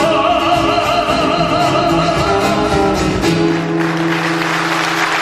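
Folk song ending on a long sung note with vibrato over sustained instrumental accompaniment. Applause breaks out just under four seconds in.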